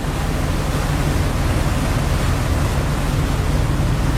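Speedboat running steadily: a low, fast-pulsing motor hum under a constant rush of water.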